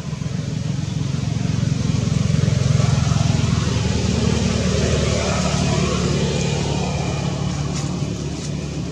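A motor vehicle engine running steadily, getting louder over the first few seconds and then slowly fading.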